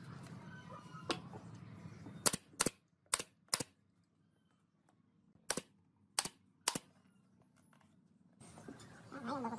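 Nail gun firing seven times into a wooden frame: a quick run of four sharp shots, then a pause, then three more.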